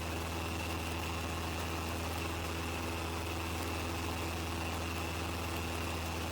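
Steady drone of a Cessna's single piston engine and propeller heard inside the cabin, running evenly at pattern power with a low hum and a fainter high whine.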